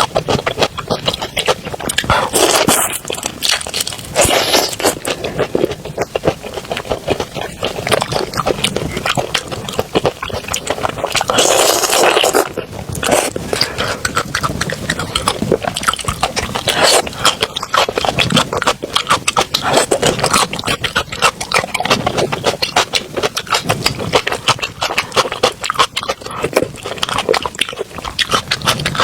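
Close-miked eating sounds: a steady run of chewing and mouth smacking, with a few louder stretches about two, four and twelve seconds in.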